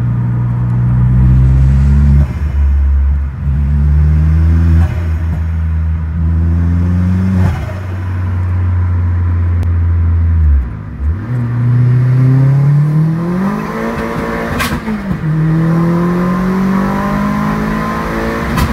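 Turbocharged Z20LET four-cylinder in an Opel Astra fitted with a K06 turbo, heard from inside the cabin under hard acceleration. The engine note climbs steadily in pitch, drops at each gear change, about four times in all, and then climbs again.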